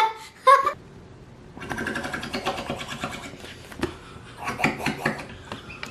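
Air blown through a straw into a blob of slime, making fast crackling and popping in two spells, with a few sharp pops in between. Two short squeaky squelches come right at the start.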